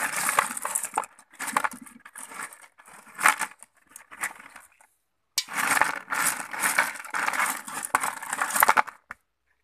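Crushed gravel rattling and crunching in a plastic basin as a hand scrapes and presses the stones. It comes as a run of clicks, in short bursts in the middle and a longer stretch near the end, with a brief silence about halfway through.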